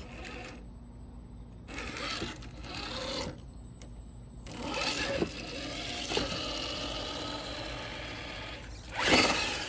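Traxxas TRX-4 Sport RC crawler driving, its small electric motor and geared drivetrain whirring in spells as the tires scrabble over tile and pavement. There is a louder rush of noise near the end.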